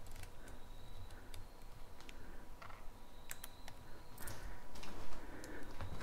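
A few sharp, light clicks at irregular spacing, over a faint steady high-pitched whine. Soft rustling movement joins them from about four seconds in.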